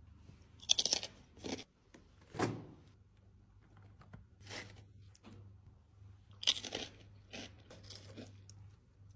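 Crisp potato chips crunching in a string of separate, short crunches, loudest about a second in and again about six and a half seconds in. A faint low hum runs underneath.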